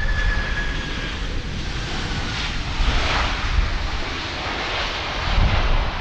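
Boeing 767 jet airliner flaring just above the runway on landing. Its engines give a high whine that falls slightly and fades about a second in, leaving a steady rushing jet roar. Heavy, uneven low rumble from strong gusty wind on the microphone runs underneath.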